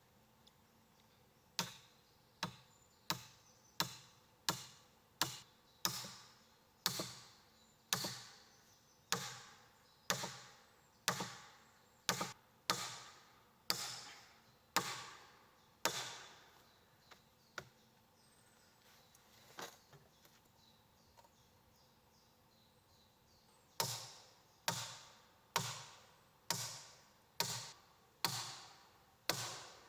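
A regular series of sharp blows on wood, roughly one every three-quarters of a second. There is a long run of strikes, a pause of several seconds with only a few faint knocks, then another run near the end.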